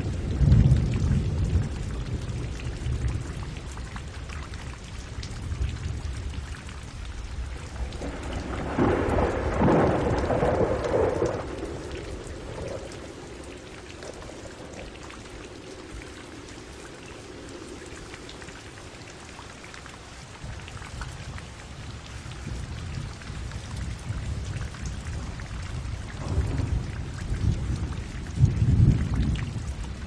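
Steady rain falling, with rolling thunder: a low rumble at the start, a louder, longer peal about a third of the way in, and another rumble near the end.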